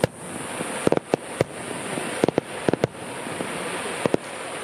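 Aerial firework shells bursting: about nine sharp bangs, several in quick pairs, over a steady background hiss.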